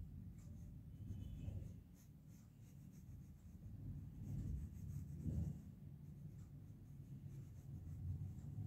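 Faint scratching of a flat paintbrush stroking paint onto cloth stretched in an embroidery hoop, over a low background rumble.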